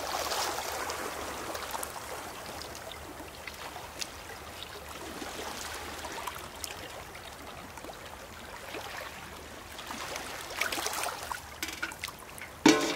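Sea water trickling from a galvanised metal bucket through a plastic funnel into glass bottles, over small waves lapping on a pebble shore. Near the end, a single sharp metallic clank as the bucket is set down on the stones.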